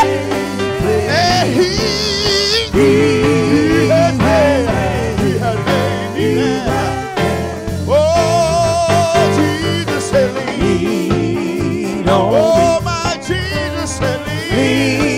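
Gospel song performed live: a lead singer's vocal with vibrato over a band of keyboard, electric guitars and bass.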